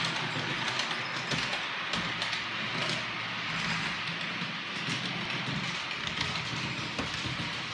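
OO gauge model trains running on the layout's track: a steady whirring rumble from their motors and wheels, with a few sharp clicks scattered through it.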